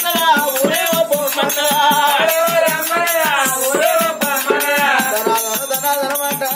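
Oggu Katha folk singing: a held, melodic vocal line that slides in pitch. Under it runs a steady jingling rattle from the performers' ankle bells and hand percussion.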